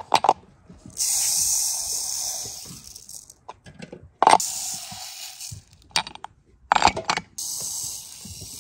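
Granulated sugar pouring into glass bottles over pomegranate seeds: a hissing stream of grains in several pours, broken by sharp clinks of glass on glass near the start, about four seconds in, and around six to seven seconds.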